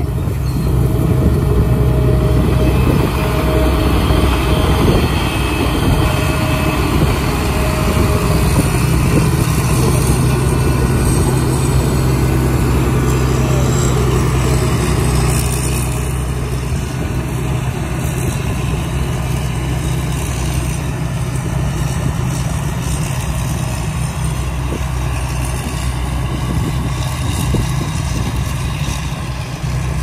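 Rice combine harvester running steadily while it cuts and threshes rice: a constant engine hum with the noise of the cutter and threshing machinery, a little quieter from about halfway.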